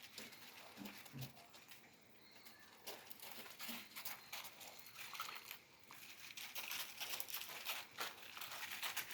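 Great Dane puppies moving about: faint, scattered rustling and scratching clicks, with a few short low sounds in the first few seconds, growing busier toward the end.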